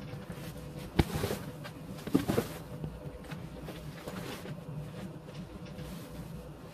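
Foam cushion being worked by hand into a leatherette box-cushion cover: scuffing and rustling of the vinyl and batting, with a sharp knock about a second in and another about a second later.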